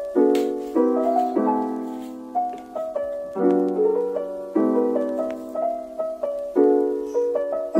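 Background piano music: a gentle tune of repeated chords and melody notes, each struck and then fading.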